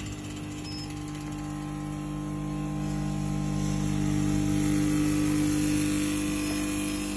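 Vibratory bowl feeders on an automatic spot welding machine humming steadily, with small metal parts rattling in the bowls; the hum grows louder about halfway through.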